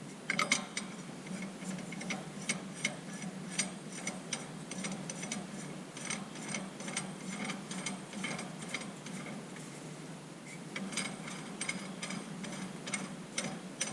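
Hand-tool work on small metal fasteners: a run of light metallic clicks, irregular at a few a second, with denser clusters near the start and again about eleven seconds in.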